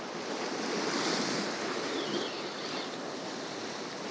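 Sea waves surging and washing against the rocks at the foot of a rocky shoreline, swelling a little about a second in.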